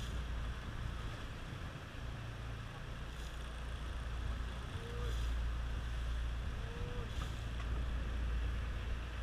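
Steady low hum of a fishing boat's engine running, a little louder in the second half.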